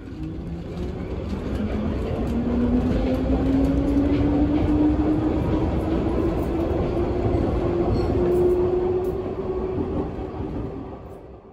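Glasgow Subway train heard from inside a carriage as it pulls away and runs into the tunnel: a loud rumble of wheels on rail with a motor whine that rises steadily in pitch as the train gathers speed. The sound swells in at the start and fades out near the end.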